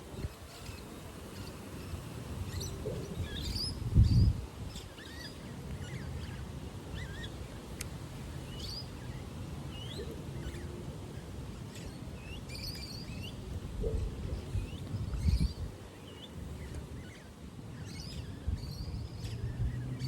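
Small birds chirping on and off, short high calls scattered throughout, over a low steady rumble. A dull thump about four seconds in, and a softer one about fifteen seconds in.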